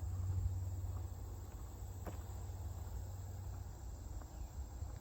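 Quiet outdoor ambience: a steady low rumble with a thin, steady high-pitched insect drone, likely crickets, and no distinct events.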